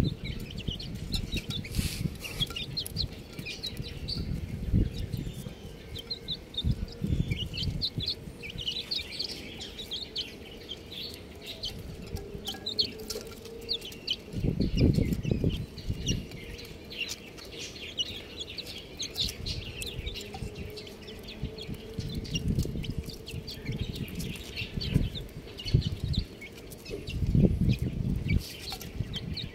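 Young chicks cheeping: many short, high peeps overlapping throughout. Low rumbling bursts run beneath them, loudest about fifteen seconds in and near the end.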